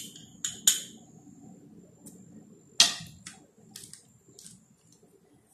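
A metal spoon clinking against small dishes several times while ingredients are spooned out, with the sharpest clink about three seconds in.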